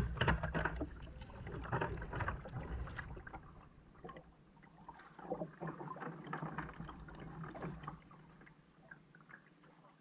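Kayak paddles dipping and splashing in calm sea water in slow, irregular strokes, louder in the first few seconds and fainter after about four seconds.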